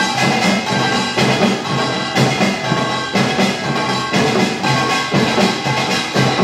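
Korean utdari samulnori percussion: kkwaenggwari small gongs clanging in a fast, driving rhythm over janggu hourglass drums and buk barrel drums, with ringing metal tones above the drum strokes.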